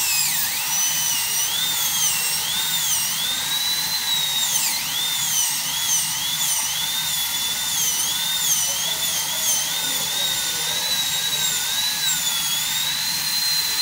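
High-speed dental handpiece whining continuously as its bur cuts depth grooves into the lingual cusp of a typodont premolar during a crown preparation. The pitch wavers and dips each time the bur bites into the tooth, most deeply about five seconds in.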